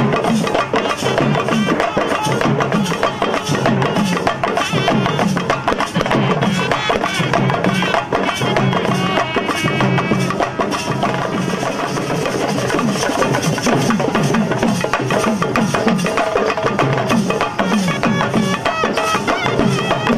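Live Tamil folk music: a reed wind instrument plays a wavering melody over steady, fast drumming on large hand-held drums.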